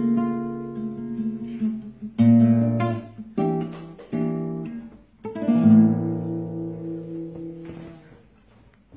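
Acoustic guitar strumming several chords, each left to ring out, dying away near the end as the song closes.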